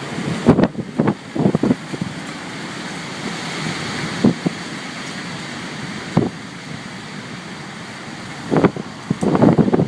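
Storm wind blowing steadily, with gusts buffeting the microphone in short, loud bursts, a cluster early on and another near the end.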